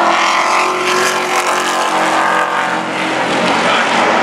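Engines of several Pro Truck race trucks running together, a loud steady drone of overlapping engine notes.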